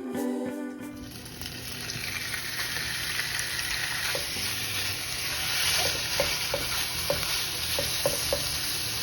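Stir-fry ingredients sizzling in hot oil in a pan, a steady frying hiss, with a few light taps from stirring in the second half.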